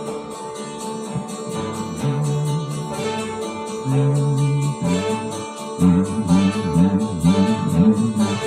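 Instrumental pop music intro led by guitar over held bass notes, growing fuller and louder with strummed chords about six seconds in.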